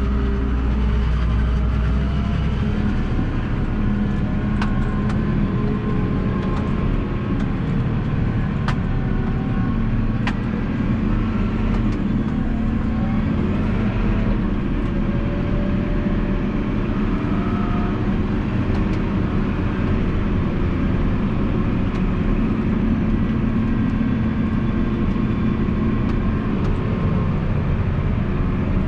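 Massey Ferguson 7718S tractor's six-cylinder diesel engine and drivetrain running steadily under way, heard from inside the cab. A few sharp clicks come about five, nine and ten seconds in.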